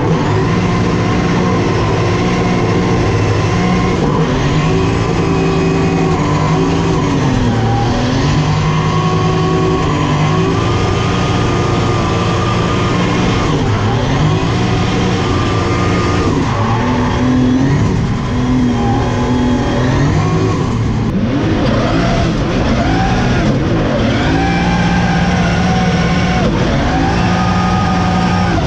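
BMW E92 drift car's engine heard from inside the cockpit during a drift run. It is held at high revs, dropping and climbing again many times as the throttle is lifted and reapplied, with a deeper dip about two-thirds of the way through.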